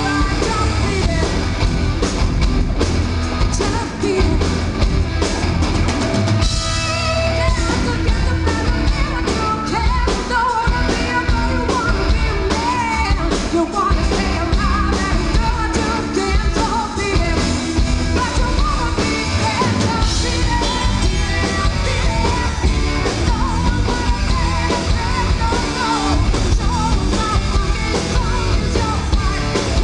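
Live rock band playing: a woman singing into a microphone over drum kit and guitars.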